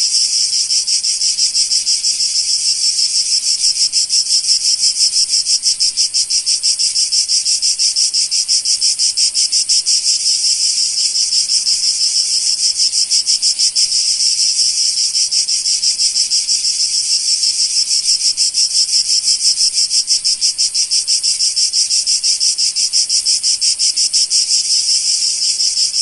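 Cicada singing: a loud, continuous high-pitched buzz with a fast, even pulsing that holds steady throughout.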